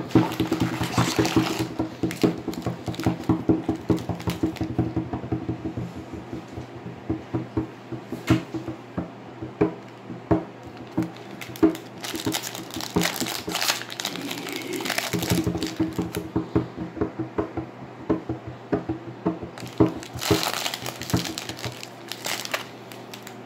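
Baseball trading cards being handled and flicked through in the hand, giving a run of quick small clicks. About twelve seconds in and again near the end, a foil Topps card pack wrapper crinkles as it is torn open and pulled off the cards.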